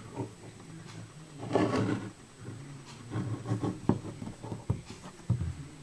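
Handling noise of a small hand-held model revolver: soft rubbing and rustling as it is turned in the fingers, with a few short, sharp clicks in the second half.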